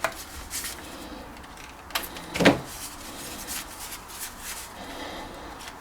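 Handling noise from the portable tire inflator's hose and threaded fittings: a few scattered light clicks and knocks of plastic parts, the loudest about two and a half seconds in.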